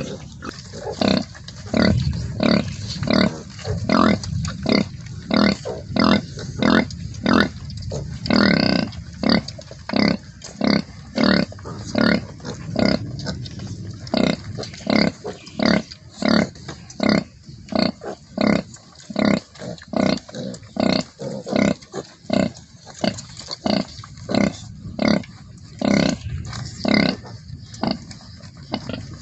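Pigs making short repeated calls, about two a second without a break, with one longer, higher call about eight seconds in.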